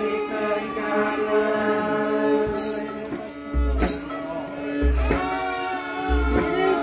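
Live Santali folk music: sustained, wavering melody lines, most likely singing, over strapped barrel-shaped hand drums. Sharp drum strikes are heard, and from about halfway a deep beat comes roughly once a second.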